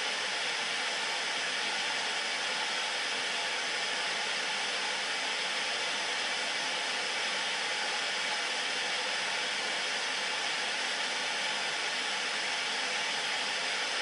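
Static from an old analogue television tuned to no signal: a steady, even hiss of white noise.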